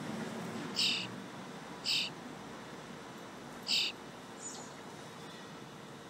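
Fledgling starling giving three short, harsh calls, the third after a longer pause, with a faint high chirp soon after, typical of a young bird's begging calls.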